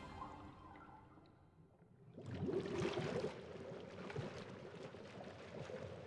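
Underwater bubbling sound effect: a mass of air bubbles gurgling and rising, starting about two seconds in as the last of the music fades out.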